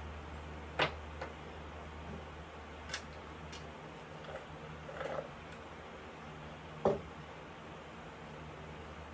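Electric fan running with a steady hum and airy hiss. A few short taps and clicks sound over it, the loudest about one second in and near seven seconds.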